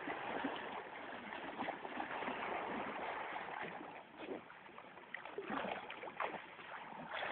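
Flowing river water rushing and splashing close by as swimmers move through it, with many small irregular splashes and gurgles.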